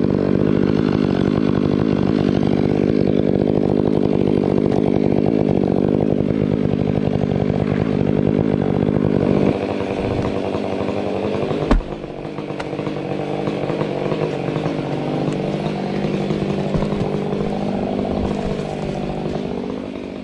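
Stihl MS 500i chainsaw running at full throttle under load, buried in a cut through a thick pine trunk. About halfway through there is a single heavy thud, and the saw carries on with its pitch rising and falling as it is fed into the wood.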